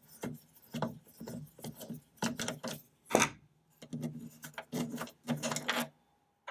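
Hand screwdriver backing a screw out of a computer case: a run of short creaking scrapes, about two a second, as the screw turns in its hole. One louder scrape comes about three seconds in, and the turning stops near the end.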